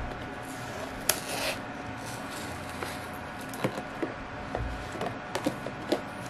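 Plastic deli cup and its snap-on lid being handled: a brief rustle about a second in, then scattered light clicks and taps.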